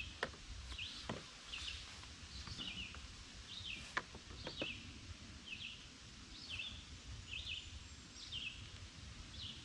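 A songbird repeating short falling notes, about two a second, over a low outdoor rumble. A few light clicks and taps come from a strap being looped around a car's roof rack bars, the sharpest about four seconds in.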